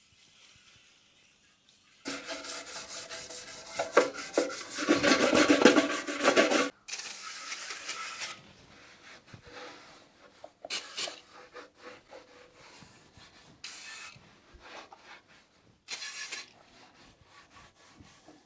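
Rapid rubbing and scrubbing strokes as dirt is cleaned off a go-kart, heavy and continuous for about five seconds, then lighter, scattered rubs and scrapes.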